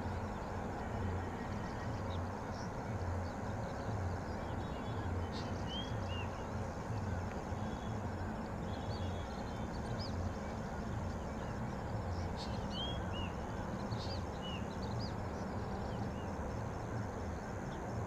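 Outdoor background of a steady low rumble with a pulsing hum, over which a few faint, short, high bird chirps come now and then, often in pairs.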